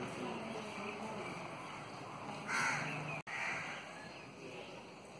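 A crow caws once, about two and a half seconds in, over faint steady outdoor background noise.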